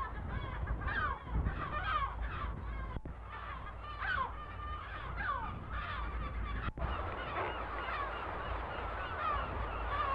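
Seabird colony calling: many birds give overlapping harsh, gull-like cries, several a second, over a low rumble. The sound drops out briefly twice, about three and about seven seconds in.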